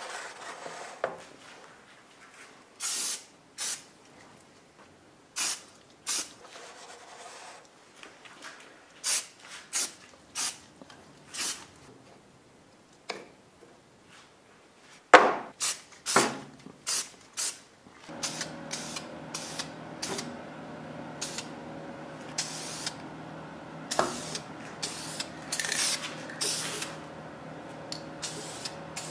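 Aerosol spray paint can spraying in many short bursts, each a fraction of a second long. A steady hum joins underneath from about eighteen seconds in.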